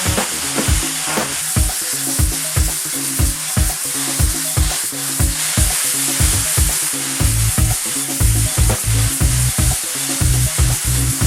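Pressure washer spray hissing steadily, over background music with a regular drum beat and bass line.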